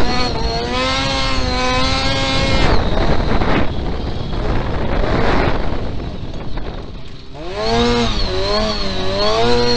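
Autocross race car's engine heard from on board while racing on a dirt track, its pitch climbing and falling with throttle and gear changes over a broad rumble of wind and ground noise. About seven seconds in the engine drops away briefly, then comes back with a wavering rise and fall in pitch.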